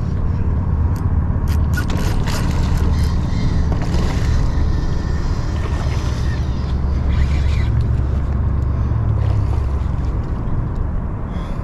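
Steady low rumble of wind buffeting the microphone on an open boat over choppy water, with scattered small clicks.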